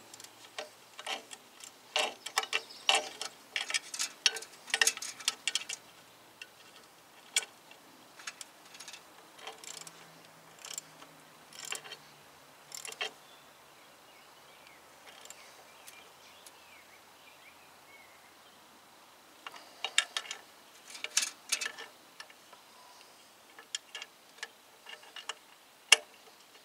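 Irregular clusters of light metallic clicks and clinks from hand tools and parts being worked at a Jeep Cherokee's rear drum brake backing plate. The clicks are dense for the first few seconds, sparse for a while, then busy again near the end.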